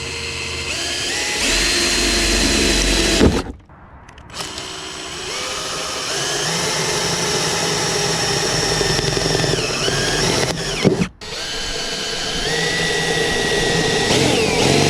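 Power drill boring holes through the sheet-metal cab roof of a pickup, running in three long runs with brief stops in between. Its whine climbs in pitch in steps as it cuts.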